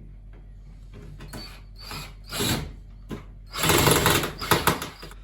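A few short scraping and rattling handling noises from work on the machine's casing and tools, with the longest and loudest about a second long between three and a half and four and a half seconds in.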